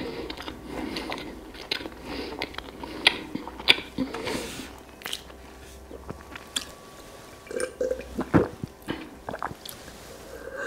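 Close-miked chewing of whole-wheat bread with honey: wet mouth sounds with many small, scattered clicks.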